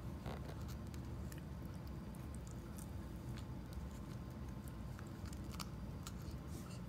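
A shichon dog nibbling at a lentil chip held out by hand, its teeth crunching the crisp chip in faint, irregular crunches and clicks.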